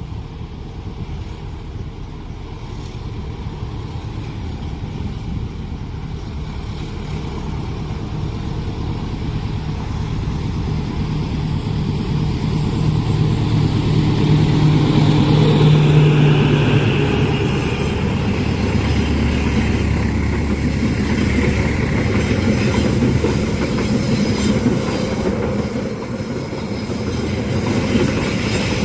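Train running through a level crossing: the sound builds to its loudest about sixteen seconds in, with the steady low hum of the locomotive's engine, then the cars roll past in a long steady rumble with wheel clatter.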